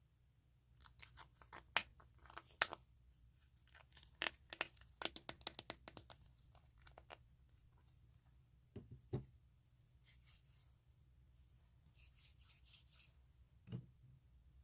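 Close-miked ASMR trigger sounds against the microphone: a run of sharp crackling clicks for several seconds, then a few soft low thumps and a faint rustle.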